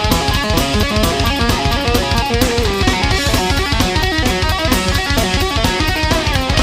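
Background rock music with electric guitar and a fast, steady drum beat.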